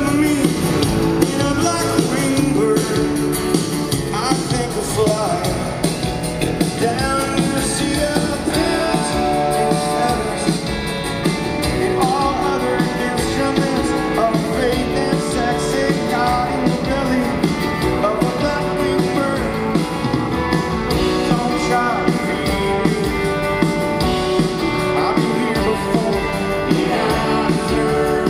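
Live rock band playing in an arena, drums, electric and acoustic guitars and piano and organ, with a male lead singer, as heard from the audience.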